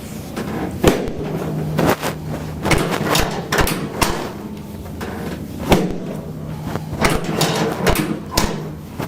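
Sharp knocks and thumps on a chiropractic treatment table during a spinal adjustment, about nine of them, irregularly spaced, over a low steady hum.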